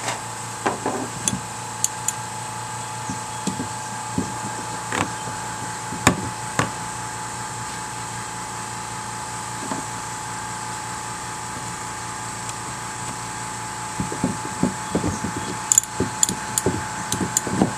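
Hand tools and metal parts being handled at the fuel pump opening on the tank: scattered light clicks and knocks, with a busier run of clicks near the end as the lock-ring tool is set into the slots of the pump's retaining ring. A steady hum runs underneath.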